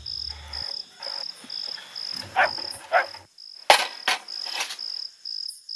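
Crickets chirping steadily in the night, a high pulsing chirp about twice a second, with a few sharp knocks in the second half, the loudest about two-thirds of the way in.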